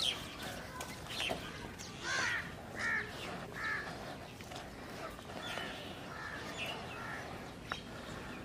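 A bird calling over and over outdoors, short repeated calls with the three loudest between about two and four seconds in and fainter ones after.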